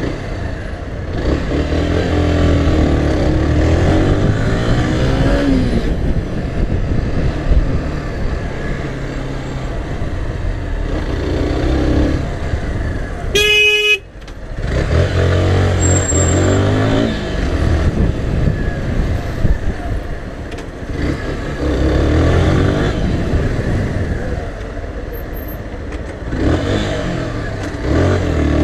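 Sym Wolf 125 motorcycle's single-cylinder engine pulling away and easing off again and again in stop-and-go traffic. A short horn beep sounds about halfway through.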